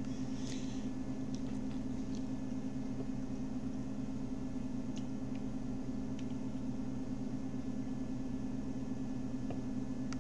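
Steady low hum of background noise with a few faint ticks and a brief hiss about half a second in.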